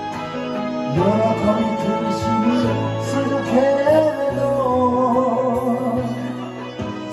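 A man singing a Japanese ballad into a microphone over a recorded backing track, his voice coming in about a second in with long, wavering held notes.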